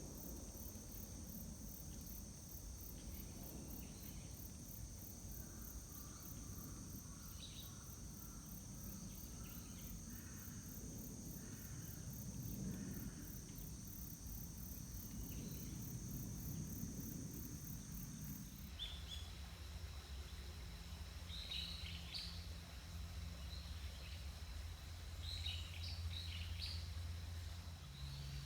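Faint outdoor insect chorus, a steady high-pitched trilling of crickets or similar insects. About two-thirds of the way through it stops suddenly, and short bird chirps take over, heard over a low steady hum.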